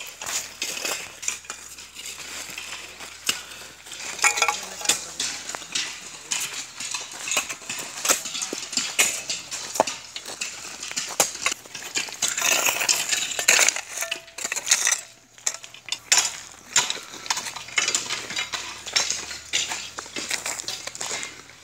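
A hoe scraping and chopping through loose brick rubble and gravel, the stones crunching and clinking in many irregular sharp clicks.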